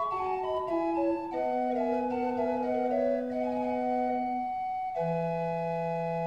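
Chamber pipe organ built by Pedro de Echevarría in 1728, playing on its Tapadillo 4' stopped-flute stop: several voices move note by note over a sustained lower note, then about five seconds in they settle onto a chord that is held steady.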